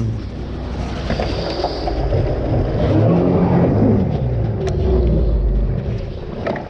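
Jet ski engine running at low speed, its pitch rising and falling as the throttle is worked, then dropping away near the end.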